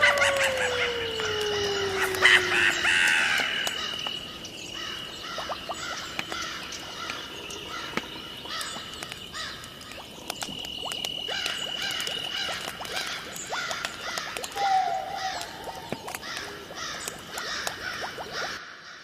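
Night-time nature ambience sound effect: a dense chorus of croaking frogs and chirping insects, with a steady high-pitched whine and many small clicks. A low call slides down in pitch over the first three seconds. The sound cuts off suddenly near the end.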